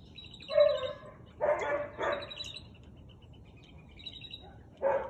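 Husky barking, four barks: one about half a second in, two close together around a second and a half and two seconds, and one near the end. Birds chirp in the background between the barks.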